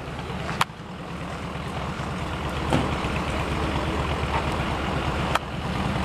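Steady low rumbling outdoor noise with three short sharp clicks, about half a second, two and a half seconds and five and a half seconds in.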